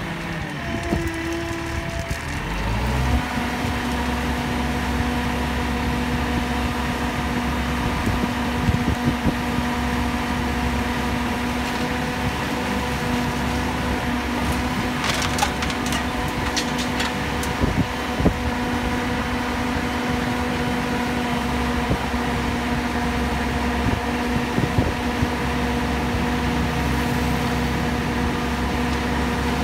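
Self-loading concrete mixer's diesel engine and hydraulic loader speed up about two to three seconds in, then hold a steady drone as the loading bucket works the aggregate. Scattered crunches and clicks of gravel come through, thickest about halfway through.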